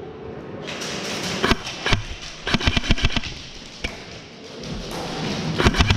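Airsoft gunfire in an indoor arena: sharp clacks in short rapid bursts, one about a second and a half in, a longer burst around the three-second mark and another near the end, over a steady background hiss.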